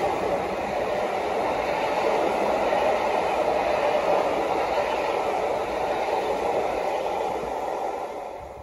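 Passenger railtour train rolling past on the track: a steady rush of wheel-on-rail noise from the coaches, falling away near the end.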